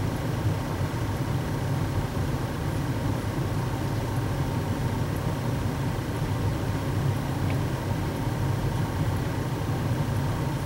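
A steady low mechanical drone, like a motor or fan running continuously.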